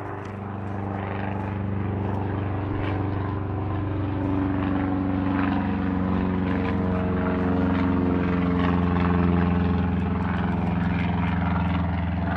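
An engine's steady, even drone that grows gradually louder over the first several seconds and then holds.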